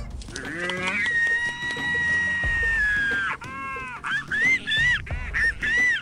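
Speculative reconstruction of a Velociraptor's call. A long high-pitched whistling tone is held for about two seconds, then drops away. It is followed by a run of short, arching, bird-like calls, about two a second.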